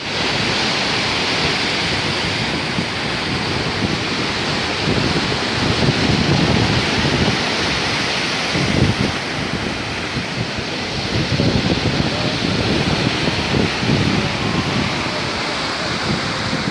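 Sea surf breaking and foaming over rocks, a continuous rush of water with heavier surges every few seconds.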